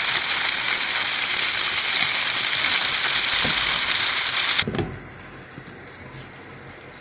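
Pork pieces sizzling as they brown in their own rendered fat in a nonstick frying pan, turned with a spatula. About two-thirds of the way through the sizzle cuts off suddenly, giving way to the much quieter sound of a pot of quartered potatoes steaming in a little water.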